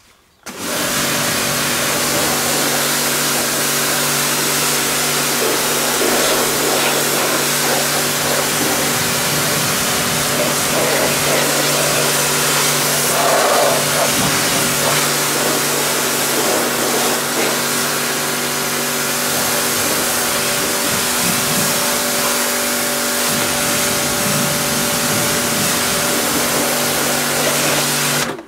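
Ruris Pro Power Jet 1900 pressure washer switching on about half a second in, its induction motor and pump running with a steady hum under the loud hiss of the fan-shaped rinse jet spraying. It cuts off sharply near the end.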